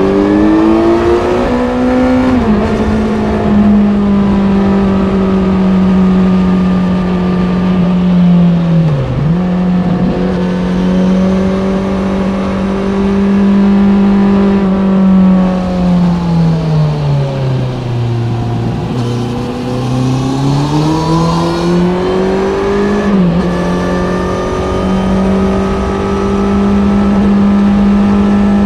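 Kawasaki Z900's inline-four engine through an Ixil SX1 full exhaust, under way at mostly steady revs. The revs dip briefly about nine seconds in, fall away and climb back in the second half, then dip quickly once more as the bike carries on.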